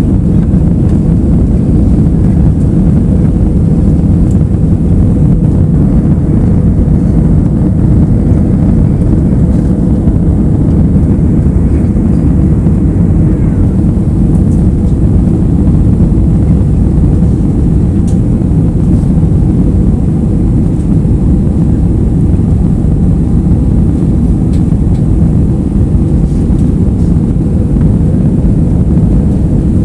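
Steady low drone inside an airliner cabin in flight: engine and airflow noise, even throughout with no changes.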